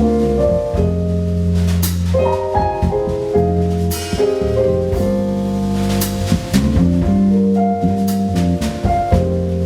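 Live jazz band playing: drum kit with cymbal strikes over held low bass notes and moving melody lines from keyboards and soprano saxophone.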